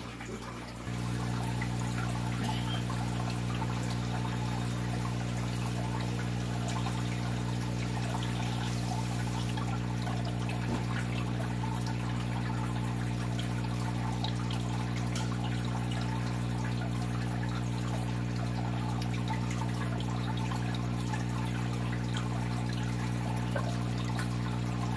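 Aquarium water trickling and splashing steadily. A steady electric hum comes in about a second in and runs on under it.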